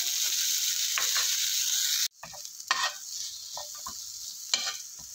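Sliced onion, tomato, coconut and coriander sizzling in coconut oil in a nonstick frying pan while a spatula stirs them. About two seconds in, the hiss cuts off abruptly, and a softer sizzle follows, broken by a few short scrapes of the spatula against the pan.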